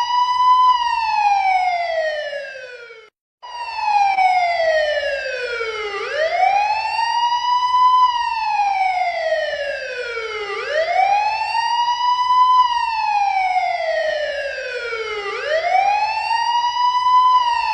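Police patrol car siren sounding a wail: the pitch rises over about two seconds and falls a little more slowly, the cycle repeating about every four and a half seconds. The sound cuts out abruptly for a moment about three seconds in, then resumes.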